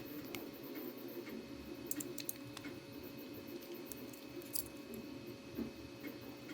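Scattered small clicks and taps of 3D-printed plastic parts being handled while a piece of filament is worked into a hinge as a pin, over a steady low hum. The sharpest clicks come in a cluster about two seconds in and singly about four and a half seconds in.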